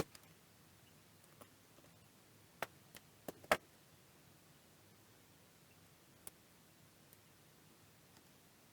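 A few scattered light clicks and taps of a screwdriver and small screws or parts being handled, clustered around three seconds in, with one more faint click later.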